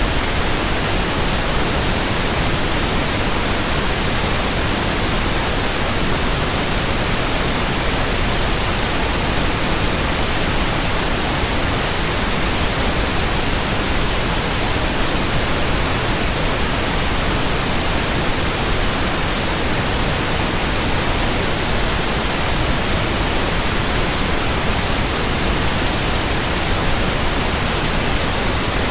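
Steady white noise: an even, unbroken hiss spread across all pitches, with no pulse or rhythm in it.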